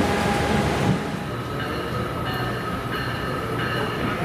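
A train rolling past on the track, a steady rumble with faint high tones that come and go.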